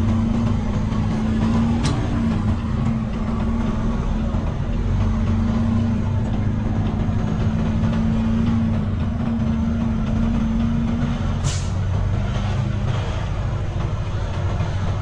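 Semi truck's diesel engine running steadily at low speed while manoeuvring, with a short hiss of air brakes about eleven seconds in.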